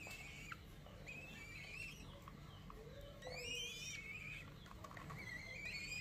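Downy raptor chicks begging for food with about four high, wavering calls during hand-feeding.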